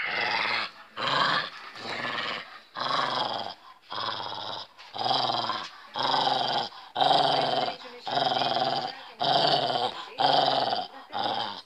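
Small white dog growling in a steady run of short growls, about one a second, as it bites and tugs at an object held in a person's hand: play growling in a game of tug.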